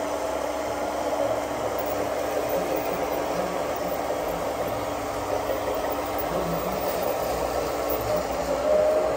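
Steady whirring of small electric motors, with a faint steady whine through it.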